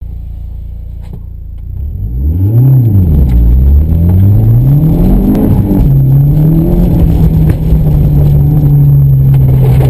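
2014 Mitsubishi Lancer Evolution's turbocharged four-cylinder engine, heard from inside the cabin: it idles, revs up and down once about two seconds in, then climbs in pitch as the car pulls away. After a gear change about five and a half seconds in it holds a steady note under power.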